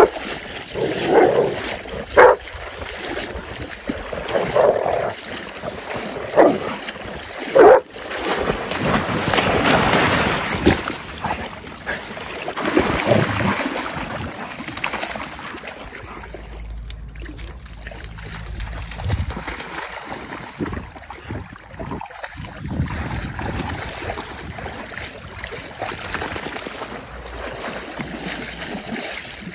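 Golden retrievers splashing through shallow lake water as they wade and swim, with several short cries from a dog in the first eight seconds. The splashing is heaviest in the middle and softer near the end.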